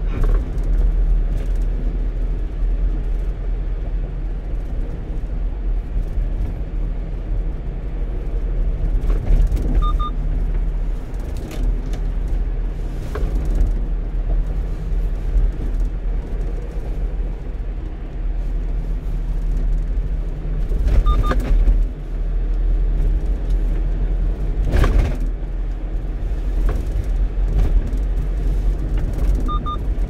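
A 1-ton truck driving on the expressway: steady low engine and road rumble, with a few short knocks from bumps in the road. A faint short double beep sounds about every ten seconds.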